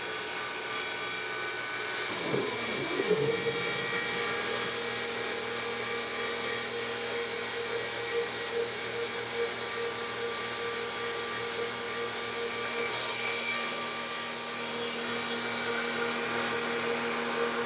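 Benchtop CNC mini mill cutting metal with a three-flute carbide end mill on a deep roughing pass: the spindle whines steadily while the cutter bites into the stock. A brief dip and rise in pitch comes about two to three seconds in, then the tone holds steady.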